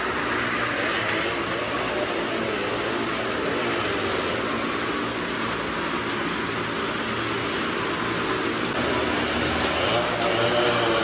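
Engines of several cars and motorcycles running together as they circle the wooden wall of a well-of-death pit, a continuous dense drone; near the end the engine note grows a little louder and wavers up and down.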